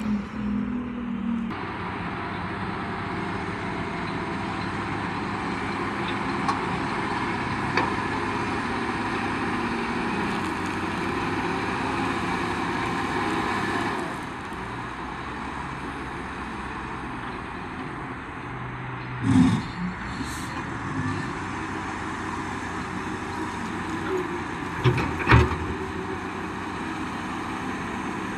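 Vehicle engine running steadily, with a few short knocks about two-thirds of the way through and near the end.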